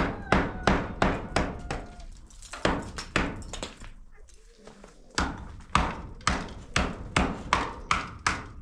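Hammer striking concrete blocks, steady blows about three a second, chipping at the wall beside a metal door frame being fitted into the opening. The blows slacken about halfway through, then resume.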